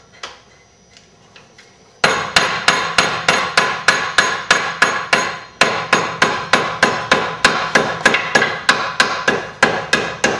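Hand hammer striking a red-hot iron arrowhead socket on a socket stake held in a bench vise: rapid, even blows, about four or five a second, starting about two seconds in, each with a brief metallic ring. The hammering rounds the socket up to the diameter of the arrow shaft.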